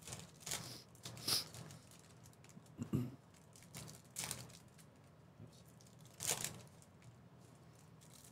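Foil trading-card pack wrapper crinkling and tearing as it is opened by hand and the cards are slid out, in several short rustles a second or two apart.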